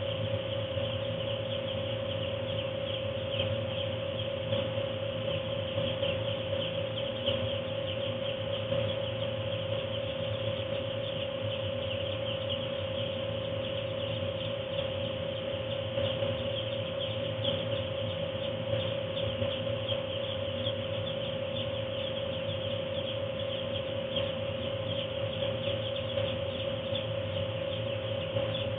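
A large flock of two-day-old Ross 308 broiler chicks peeping continuously, a dense high chatter. Under it runs the steady hum of the house's forced-air heating, the loudest single tone throughout.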